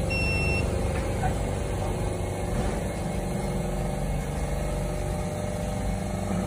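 Electric button bit grinding machine just powered up: a brief high electronic tone near the start, then a steady machine hum.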